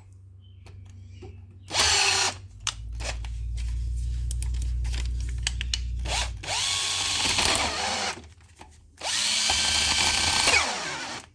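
Electric drill with a larger bit drilling down the center of a car's ignition lock cylinder, run in several bursts that spin up and wind down: a short one about two seconds in, a longer lower-pitched stretch, then two more near the end.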